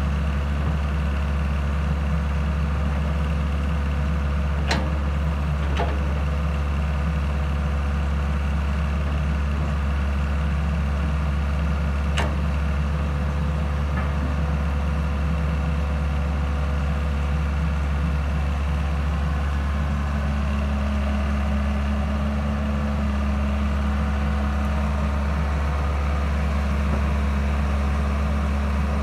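Hitachi EX120-3 excavator's diesel engine running steadily at a constant speed, with a few short sharp clicks around five and twelve seconds in.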